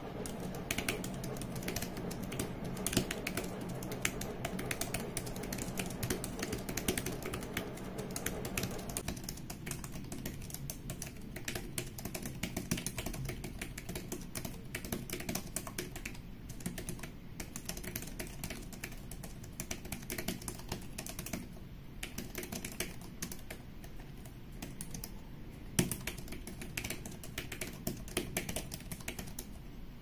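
Fast, continuous touch-typing on a Xiaomi Mi Pad 5 keyboard cover: a dense run of soft key clicks, with one harder key strike a few seconds before the end. A low steady hum sits under the first third and stops about nine seconds in.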